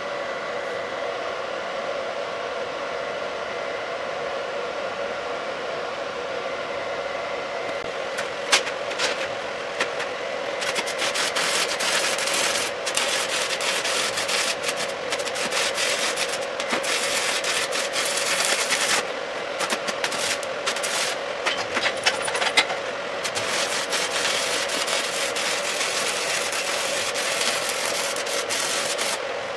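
Stick welding with a cellulosic 6010/6011 electrode: a steady hum for the first several seconds, then the arc strikes about eight seconds in and runs as a harsh, continuous crackle and sputter, with a brief break in the middle.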